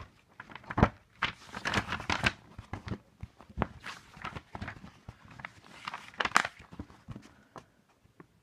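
Handling noise close to the microphone: irregular rustling, bumps and clicks as hands and a sleeve move against the recording device and a picture book is opened. It dies down in the last second or so.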